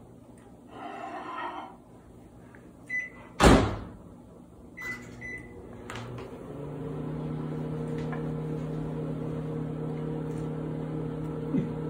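A microwave oven being started: a loud clunk, as of its door shutting, a few short high keypad beeps, then the oven running with a steady hum from about six seconds in.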